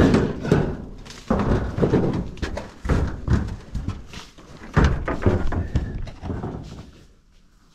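Footsteps and scuffling over rough ground with a few thumps, irregular and uneven, dying away near the end.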